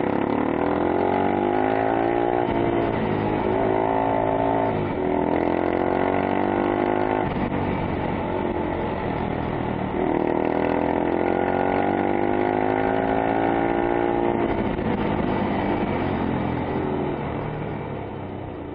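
Sport ATV's engine heard from on board under hard riding. It revs up in pitch in repeated runs, dropping back at each gear change every two to three seconds and easing off about ten seconds in before pulling again. The sound fades near the end.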